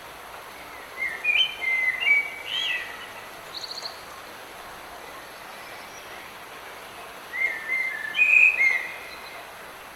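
A songbird singing a short phrase of several gliding whistled notes about a second in and again near the end, with a brief run of quick high notes in between, over a steady hiss of light rain.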